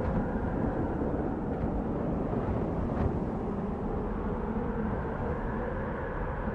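Desert wind blowing steadily: an even, low rush of noise without any tone, with a faint brief gust about three seconds in.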